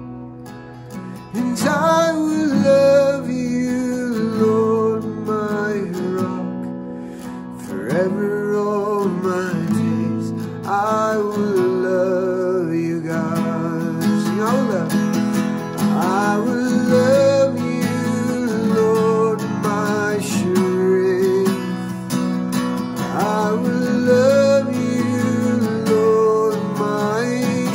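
A man singing a worship song with held, wavering notes, accompanying himself on a strummed Takamine acoustic guitar. The music dips briefly just after the start, then carries on.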